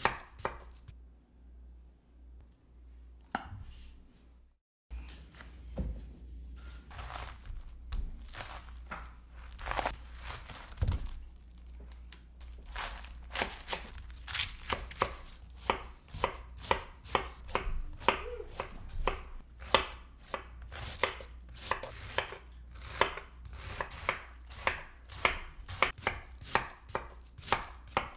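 Chef's knife slicing green cabbage into thin shreds on a wooden cutting board, each cut ending in a sharp knock on the board. A few spaced cuts at first, then a steady run of about two chops a second from around twelve seconds in.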